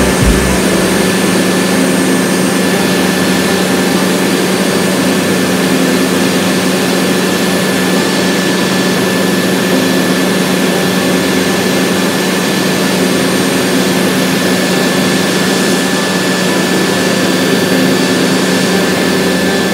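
Helicopter in cruise flight heard from inside the cabin: the steady drone of the turbine engine and main rotor, with a thin high whine.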